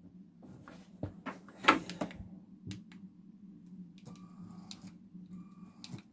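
Clicks and knocks of a plastic LEGO Powered Up remote controller being handled and its buttons pressed, the loudest knock a little under two seconds in. A few short, faint tones follow in the second half.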